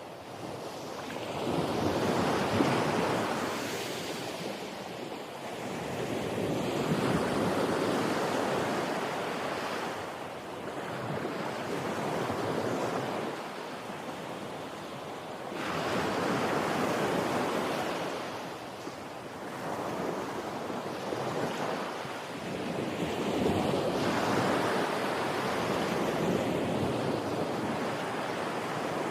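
Ocean waves surging and washing in, in slow swells that rise and fall about every four to five seconds.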